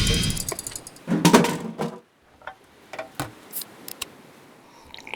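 Music fading out, then a short clatter about a second in, followed by a few scattered light clicks and taps.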